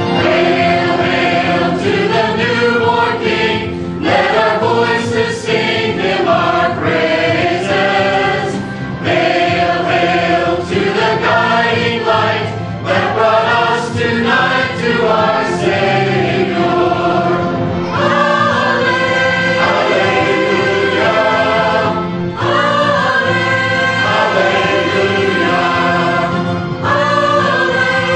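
Mixed choir of men's and women's voices singing in parts, at first in moving phrases and later in long held notes.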